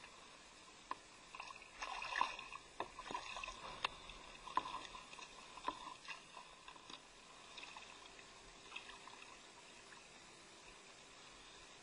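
Small waves lapping and slapping against a kayak's hull, with irregular splashes and a few sharp knocks through the first seven seconds or so, then quieter lapping.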